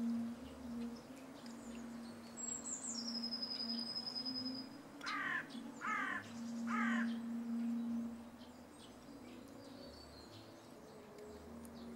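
Hooded crow cawing three times, about a second apart, over a steady low hum, with a thin high whistle just before the caws.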